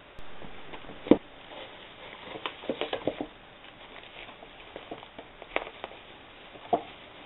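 Packaging being handled, bubble wrap crinkling and crackling in irregular bursts, with a loud knock about a second in.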